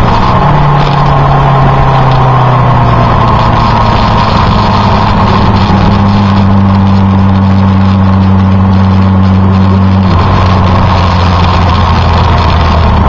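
Motorcycle engine running at a steady cruise, heard from on board a moving bike, with a constant rush of wind noise. The engine note steps down once about ten seconds in.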